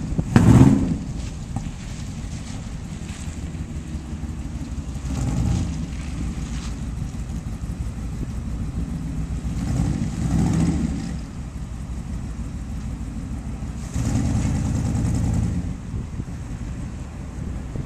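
1934 Plymouth hot rod's exhaust, through 2½-inch mandrel-bent pipes and Magnaflow mufflers, giving a low steady rumble as the car drives. It swells louder with throttle about half a second in, again around five and ten seconds, and for a second or so near fourteen seconds.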